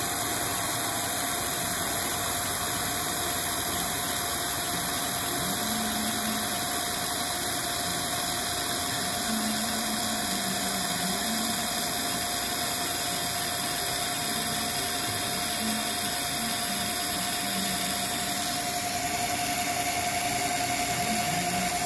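Milling machine spindle running an indexable carbide end mill through a light finish pass on a 4140 steel shaft, with coolant mist spray hissing: a steady machining hum with a high steady tone over it. On this light finish pass the work chatters a little. The sound shifts slightly near the end as the cutter clears the part.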